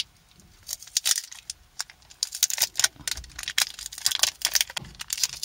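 Thin clear plastic protective film crinkling and crackling as it is peeled off a smartphone's back, a rapid run of small crackles that grows busier about two seconds in.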